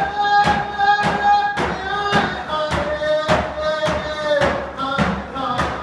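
Round-dance song: a hand drum beaten in a steady beat, about two strikes a second, under singing that holds long notes.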